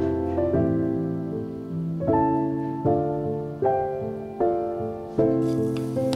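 Soft background piano music: a new chord struck every second or so, each ringing and fading before the next.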